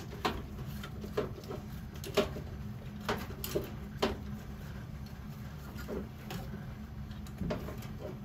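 Scattered small clicks, taps and scrapes of gloved hands working on the wiring inside a gas boiler's sheet-metal cabinet, with a few sharper knocks about two, three and four seconds in. A steady low hum runs underneath.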